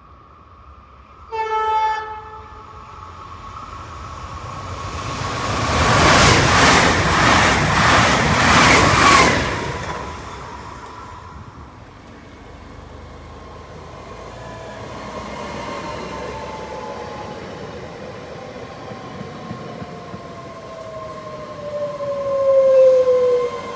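A train sounds a short horn blast about a second in, then passes at speed with a loud rush of noise and clatter of wheels over rail joints that peaks and fades after a few seconds. In the second half, steady whining tones and a slowly falling pitch run under the rail noise, with another loud swell near the end.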